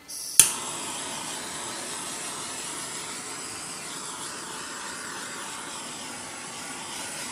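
Handheld gas torch lit with a sharp click, then its flame hissing steadily as it is passed over wet acrylic paint to pop air bubbles.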